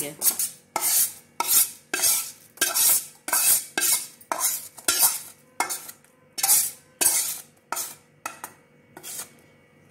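A metal spatula scraping roasted gram flour around and out of a steel kadhai, in short, sharp strokes about two a second. The strokes die away near the end.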